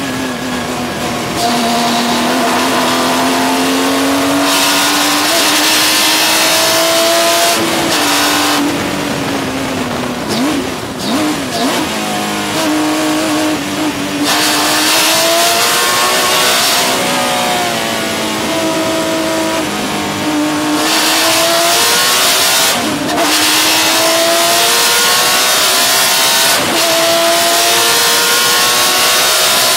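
Porsche 996 GT3 Cup race car's flat-six engine under racing load. Its pitch climbs, then drops sharply at each of several upshifts, and falls with short throttle blips under braking about 8 to 12 seconds in. Wind and tyre hiss run steadily underneath.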